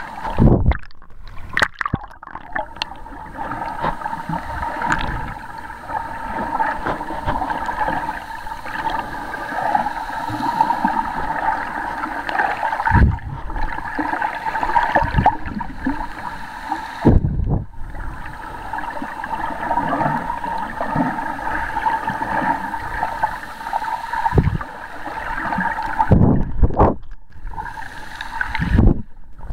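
Water gurgling and rushing around a camera held underwater, a steady noise broken by a few short dips and low thumps around the middle and near the end.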